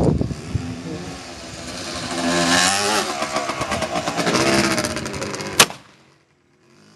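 An engine revving up and down, then a single sharp rifle shot about five and a half seconds in, after which the sound cuts away.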